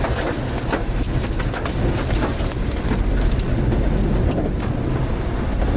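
Storm noise: heavy rain and strong wind, with the wind rumbling low on the microphone and many scattered sharp clicks of rain or debris hitting.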